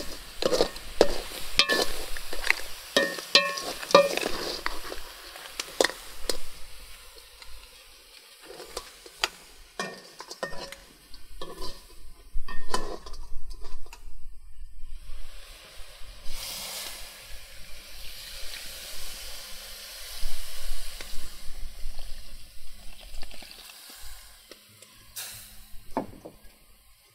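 Coconut-shell ladle stirring crab pieces and spices in a pot, with repeated scraping and knocking clicks, and food sizzling over a wood fire.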